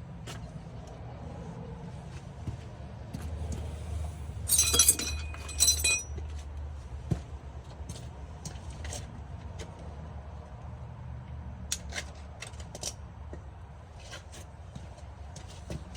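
Metal parts and tools clinking and rattling during hands-on work refitting a car alternator, with a short burst of ringing clinks about five seconds in and a few lighter clicks later, over a steady low hum.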